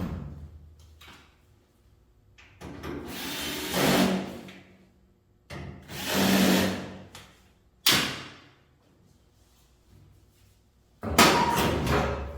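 Power drill running in two short bursts of about a second and a half each, then a sharp click and a louder burst of clatter near the end.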